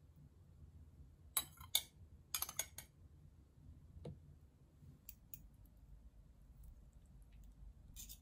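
Metal spoon clinking against dishes: two sharp clinks about a second and a half in, a quick cluster of three or four a second later, then a few softer taps and ticks.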